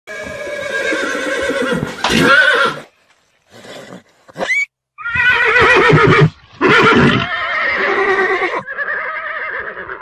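Horses whinnying: a series of long, loud neighs with a quavering pitch, broken by a gap of about two seconds after the first call.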